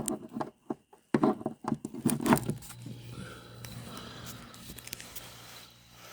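Clicks and knocks of a power cord being handled and plugged in, then, about two and a half seconds in, a steady low hum starts: the compressor of a new Hotpoint chest fridge-freezer starting up.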